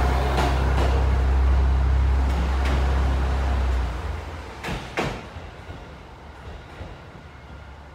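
KiHa 200 series diesel railcar pulling away: a low engine and running-gear rumble with sharp clacks of wheels over rail joints, a close pair about five seconds in. The rumble drops off about four seconds in as the train moves away.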